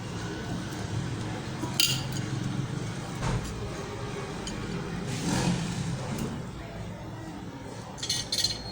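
Kitchen utensils and dishes clinking against each other, with a sharp clink about two seconds in and a few more near the end, over a steady low hum.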